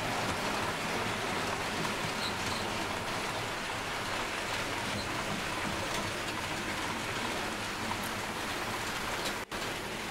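OO gauge model train running along the layout track, a steady hiss and rumble of wheels and motor. The sound cuts out for an instant near the end.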